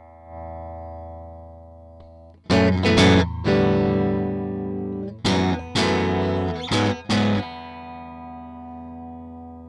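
Electric guitar played through a Fairfield Circuitry Barbershop overdrive pedal, with overdriven chords. Two short runs of strummed chords come about two and a half and five seconds in, and each is left ringing and fading away.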